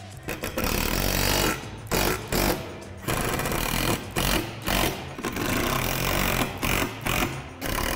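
Cordless power driver running in a series of short bursts, each a second or less, driving the bolts that fasten a basketball rim's bracket to the backboard.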